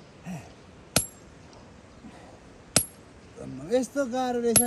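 Sharp metallic clinks, three in all, evenly spaced about two seconds apart, each with a brief high ring. A person's voice is heard briefly near the end.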